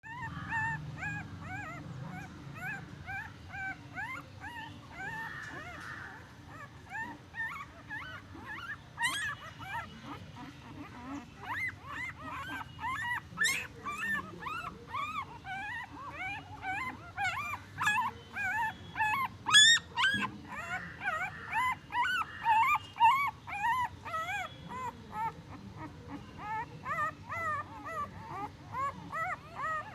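Newborn puppies whimpering and squeaking: short, high, rising-and-falling cries, several a second and often overlapping, with a few louder squeals around the middle.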